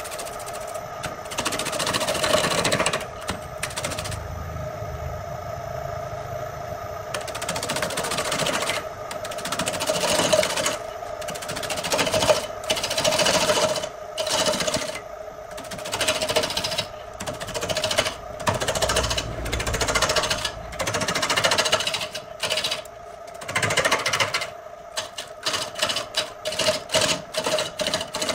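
Wood lathe running with a steady hum while a long turning tool cuts into a spinning charred log, down through the burnt outer layer, giving rattling, scraping bursts each time the tool bites in. The bursts come every second or two and grow shorter and quicker near the end.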